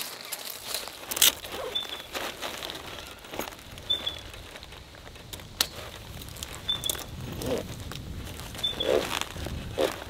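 Plastic rubbish bag crinkling and rustling as it is handled and packed onto motorcycle luggage, with a bird giving a short high call about every two seconds.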